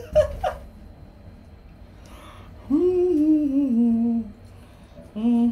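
A person humming: one long phrase that steps down in pitch, then a second note that rises near the end.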